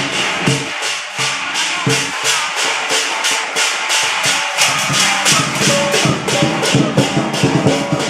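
Temple festival music: a fast, even beat of percussion strokes, about four a second, over sustained pitched instruments. The lower drumming grows denser about halfway through.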